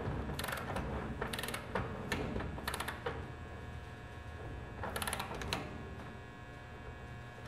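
Ratchet of a torque wrench clicking in short runs as the handle is swung back and forth, tightening a clamp-ring bolt. The clicks bunch in the first three seconds and come again about five seconds in.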